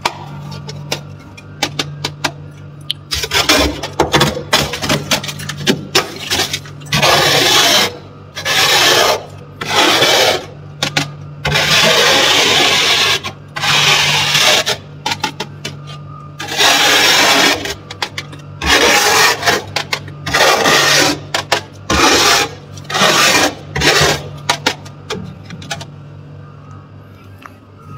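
A spoon scraping built-up frost off the inside walls of a freezer: quick crunching clicks at first, then about a dozen long rasping scrape strokes, each up to two seconds, over a steady low hum.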